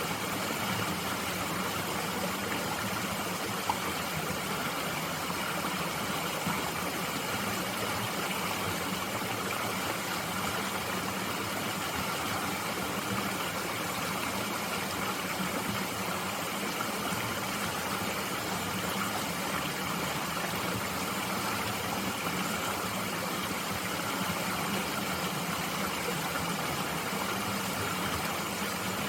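Steady rushing and burbling of a small mountain stream flowing over rocks, unchanging throughout.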